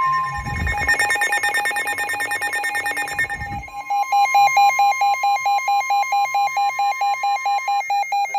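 NOAA Weather Radio warning alarm: the broadcast's steady 1050 Hz tone, which stops near the end. Over it, weather radio receivers sound their own alert beeps, first a fast trill, then an even pulsing beep about four times a second. This signals an incoming severe thunderstorm warning.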